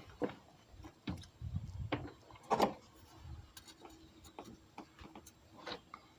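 Scattered light clicks and taps of a knife and hands working old O-ring seals out of the engine's intake lower plate, with one louder click about two and a half seconds in.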